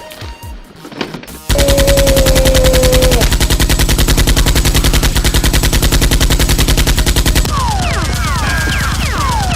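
Automatic-gunfire sound effect, a long rapid burst of shots starting about a second and a half in and running on at a steady fast rate. Near the end, short falling whistles sound over the fire.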